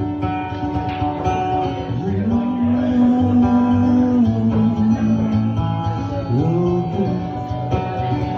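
Acoustic guitar strummed steadily under a man singing, who holds one long drawn-out note from about two seconds in, then slides up into a shorter note near the end.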